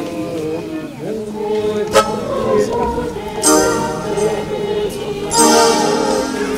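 A choir singing a hymn to an electronic arranger keyboard. A sharp click comes about two seconds in, and two short bursts of bright, hissy percussion follow, one in the middle and one near the end.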